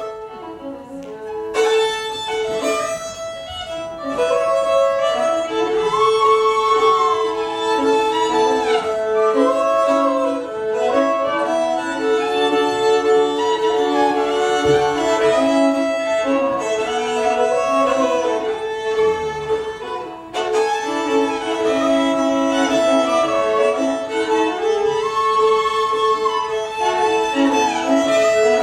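Two fiddles playing an old Cajun waltz, one carrying the melody while long held notes sound steadily beneath it; it starts softly and fills out within the first few seconds.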